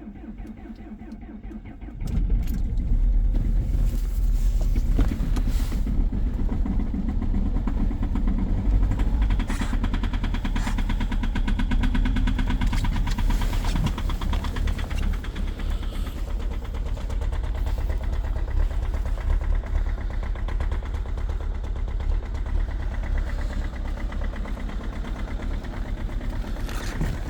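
2.0 HDi diesel engine cranking, catching about two seconds in and then running with a very strong knocking, the hard diesel knock of a cold start at -22 °C.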